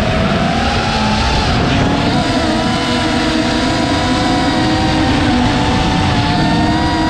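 FPV racing quadcopter's electric motors and propellers whining, several tones shifting in pitch with the throttle, over a steady rush of air.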